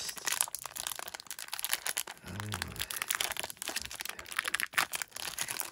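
Foil Pokémon card booster pack crinkling and crackling in the hands as it is worked at to be torn open, with a brief low voiced grunt about two and a half seconds in.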